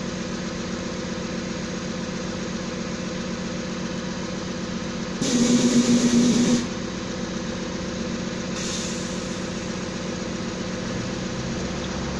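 Drilling rig's engine running steadily, with a loud burst of hissing released air from the rig's pneumatic controls about five seconds in, lasting over a second. A fainter hiss follows near nine seconds.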